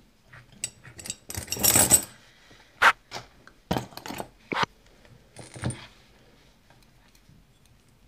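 Small metal parts of a brass pin-tumbler lock cylinder being taken apart by hand: a brief jingling rattle about a second in, then several sharp clicks.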